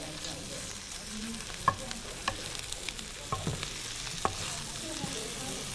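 Brussels sprouts frying in a pan with a steady sizzle while a spoon stirs them, clicking against the pan several times.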